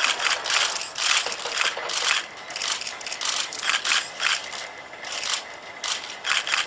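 Kawada HRP-4 humanoid robot's electric joint motors whirring in many short, irregular bursts as it moves its arms and body into a pose.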